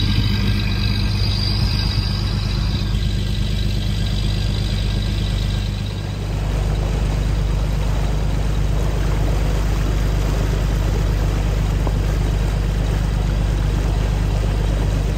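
Lobster boat's inboard engine running steadily at slow speed, a constant low drone. The boat is shaking and rattling from a rope tangled below the hull, which is why it is held to a crawl.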